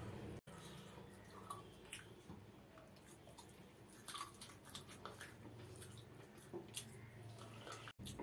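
Faint wet, sticky sounds of fingers mixing rice with mustard-gravy hilsa on a plate and eating from the hand, with chewing and smacking mouth sounds, over a low steady hum.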